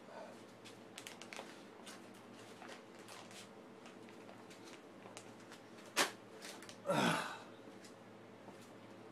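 Workshop handling noises: scattered light clicks and taps, one sharp click about six seconds in, then a brief louder rustling scrape a second later, over a steady low hum.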